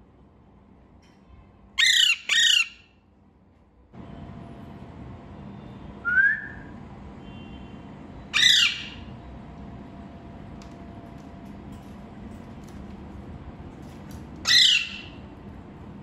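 Alexandrine parakeet squawking: two loud, harsh squawks about two seconds in, then a shorter rising call and two more squawks spread over the rest. A steady background hum starts about four seconds in.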